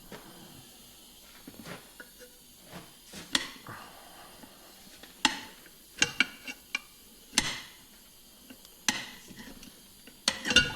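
Irregular metal clinks and knocks of a tire lever and a tire machine as a new lawn mower tire's bead is forced onto its steel rim: single sharp clacks spaced over several seconds, with a quick cluster of them about six seconds in.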